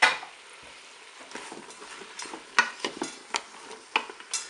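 A wooden spoon stirring sliced mushrooms and ham in a Cookeo multicooker's bowl on its browning setting. It gives irregular knocks and scrapes against the bowl from about a second in, over a faint frying sizzle. A sharp knock comes right at the start and is the loudest sound.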